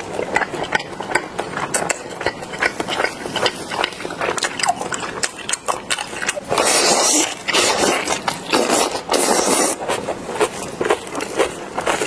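Close-up eating sounds of a person biting and chewing rice sausage and spicy napa cabbage kimchi: a run of wet clicks, smacks and crackles. Longer, louder wet slurping comes about seven seconds in and again about nine seconds in, as strands of the cabbage go into the mouth.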